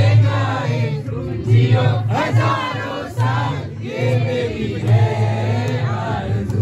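A group of people singing together over music with a heavy, pulsing bass, at a birthday cake-cutting.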